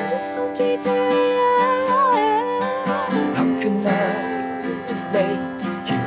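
Band music played live on acoustic instruments: an acoustic guitar picked and strummed steadily, with a held melody line over it that wavers in pitch about a second in and fades after about three seconds.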